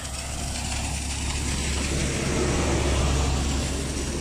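Low engine rumble of a passing vehicle, swelling to its loudest about three seconds in and then fading.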